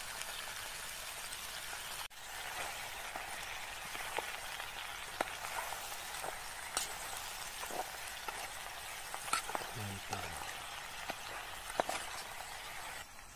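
Fish sizzling as it is stir-fried in a metal camping pot over a gas burner, with a steady frying hiss and a spoon clicking against the pot now and then as it is stirred.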